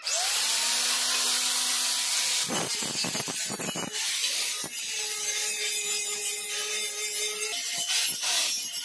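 Handheld angle grinder spinning up and cutting into stainless steel square tubing. The motor's whine rises in pitch as it starts, under a loud, steady hissing grind, with a stretch of irregular rasping in the middle of the cut.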